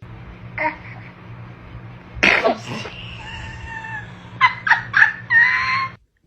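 A baby sneezes once, about two seconds in, followed by short high-pitched squeals near the end, over a steady low hum.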